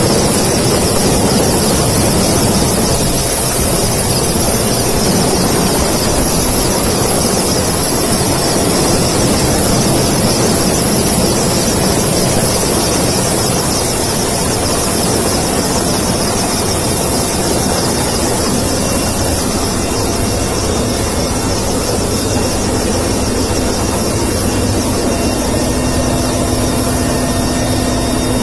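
Helicopter engines and rotor running loud and steady, heard close from aboard at the open cabin door while it hovers for a winch rescue.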